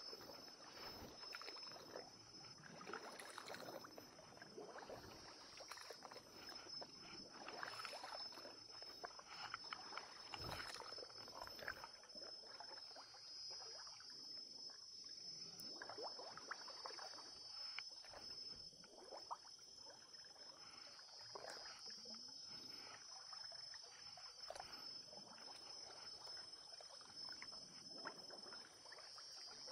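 Faint rustling and light water sloshing as an angler moves about in shallow swamp water, with small scattered clicks. A steady high-pitched drone runs behind it and swells about every eight seconds.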